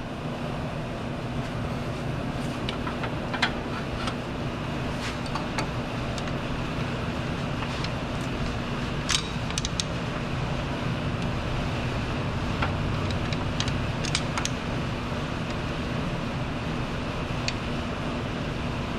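Steady mechanical drone with a constant low hum. A few light metallic clicks come from a long serpentine belt tool being worked up onto the belt tensioner.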